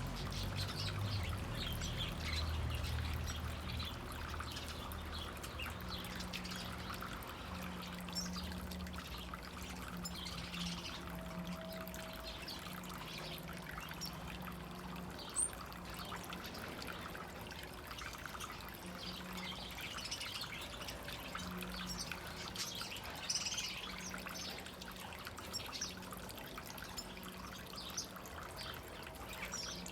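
Water trickling and splashing where small exotic birds are bathing, with bird chirps now and then and a low hum underneath.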